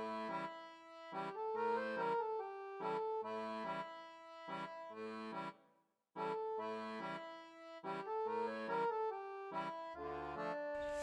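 Background instrumental music: a melody in short, bouncy phrases that breaks off briefly about halfway and starts again, with a fuller arrangement coming in near the end.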